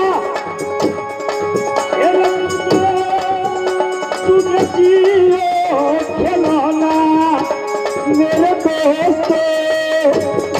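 Live folk-theatre music: a wavering melody held over a steady beat of hand percussion.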